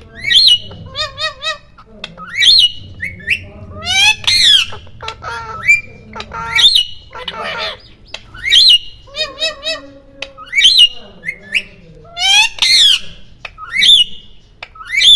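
Pet parrots squawking loudly and over and over, in short, sharp rising calls that come every second or two.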